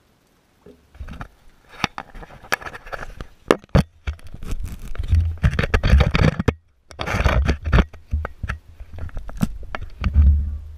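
Camera handling noise: scraping and sharp knocks against the camera body while it is moved and panned, over gusty wind rumbling on the microphone. The noise comes in uneven bursts and breaks off briefly a little past the middle.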